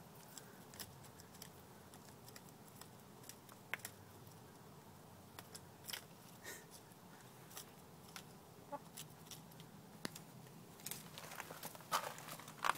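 Chickens pecking at a treat: sharp, irregular taps of beaks, with a cluck near the end.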